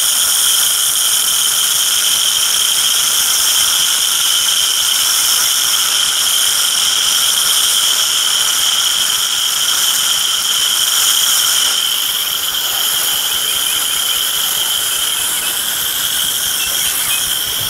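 Hose-end sprayer jetting water mixed with insecticide, a steady hiss and spatter as the spray hits the grass and the house siding, easing a little about two-thirds of the way through. A high, steady insect drone runs under it.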